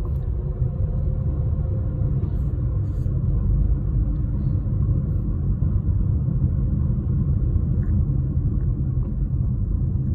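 Steady low rumble of a car driving along a paved road at steady speed, heard from inside the cabin.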